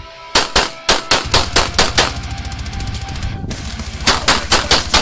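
Handgun fired in rapid strings, about five sharp shots a second, with a brief pause about three seconds in before the shooting resumes; heavy metal music plays underneath.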